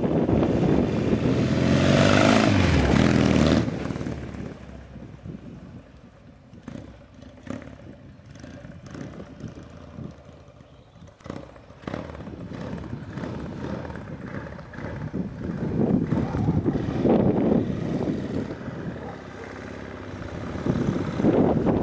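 1964 Norton Atlas 750's parallel-twin engine as the motorcycle rides past, its note dropping as it goes by about three seconds in, then fading away into the distance. The engine is heard again, rising as the bike comes back towards the end.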